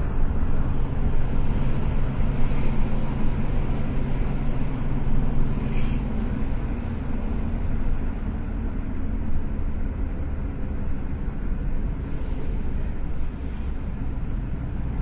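Moving road vehicle: steady low engine and road rumble.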